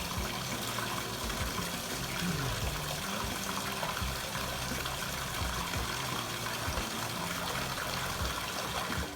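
Water running steadily from a tap, with a faint low hum underneath; it cuts off abruptly at the end.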